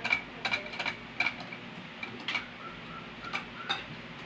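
Sharp plastic clicks, about ten at irregular spacing, from the white temperature-control dial of an Ariston electric shower heater as it is fitted and turned on its shaft.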